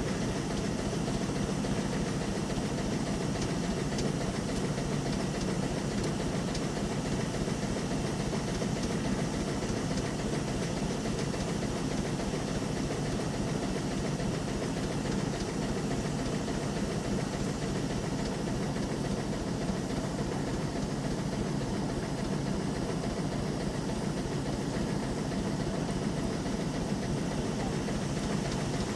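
Steam engine of the steam launch Consuta running steadily while the boat is under way.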